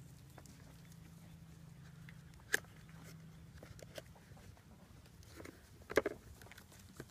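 Labrador puppies rummaging in a plastic toy bin: scattered knocks and rattles of plastic and toys, sharpest about two and a half seconds in and in a cluster around six seconds in. A low steady hum sits under the first half.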